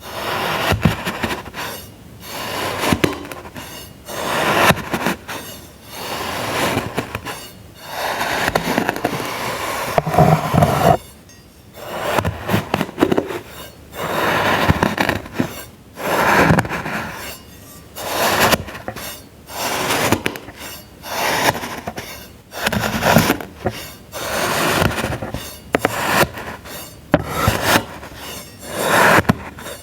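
Packed sand being cut and crumbled with a tool: repeated crunchy, crackling scrapes, about one a second.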